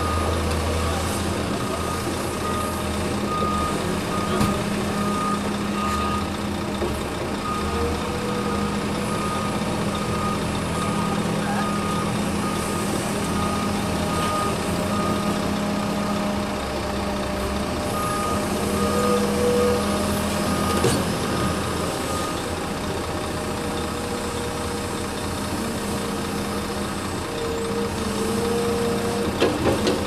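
Heavy truck engine running steadily at a construction site, with a vehicle's reversing alarm beeping at an even pace. The beeping stops for a few seconds midway, then resumes briefly.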